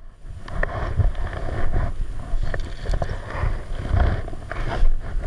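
Wind rumbling and buffeting on the microphone over water noise, with scattered sharp clicks and knocks.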